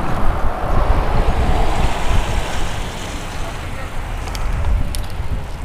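Wind rumbling on a bicycle-helmet-mounted action camera's microphone while riding among road traffic. A motor vehicle swells past in the first few seconds and fades, and a few light clicks come near the end.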